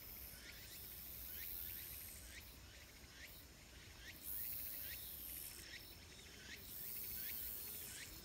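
Faint outdoor insect chorus: a high, shrill buzz that pulses on and off about once a second over a steady thin whine, with a short sweeping chirp repeating about every two-thirds of a second.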